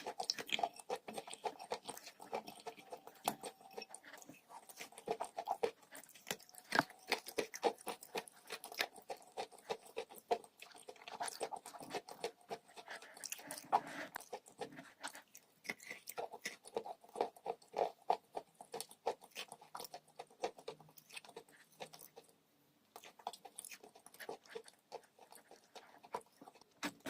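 Close-miked chewing of a crumbly, chalk-like material: dense, irregular crisp crunches with mouth sounds, easing briefly about two-thirds of the way through before picking up again.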